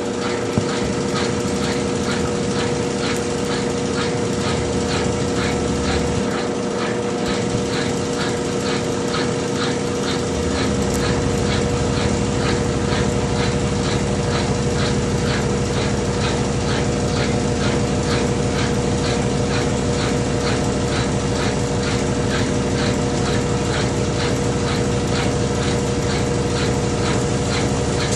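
Consul CWH12 12 kg washing machine on its final spin cycle: a steady motor whine with a rhythmic swish repeating about three times a second, and a deeper rumble coming in about eleven seconds in.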